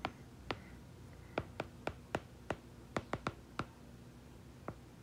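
Stylus pen tapping on a tablet screen while handwriting: about a dozen faint, sharp taps at an irregular pace.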